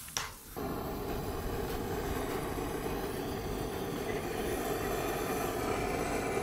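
A short click, then from about half a second in the steady rushing hiss of a handheld gas-canister torch burner's flame, blown into pine cones and firewood to get a fire pit lit.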